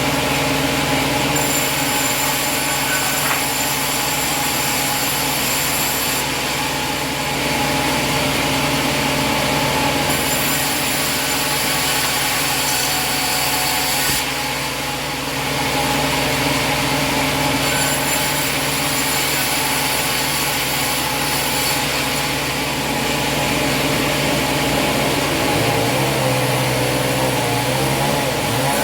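Sawmill running steadily, its engine driving the blade, with the hiss shifting every few seconds.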